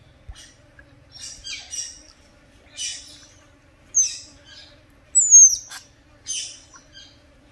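Otters calling from the water: a series of short, high-pitched chirps and squeaks about once a second. Two shrill whistles slide down in pitch, and the loudest comes a little past the middle.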